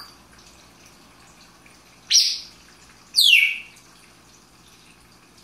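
African grey parrot giving two loud, sharp calls about a second apart, the second a quick falling whistle.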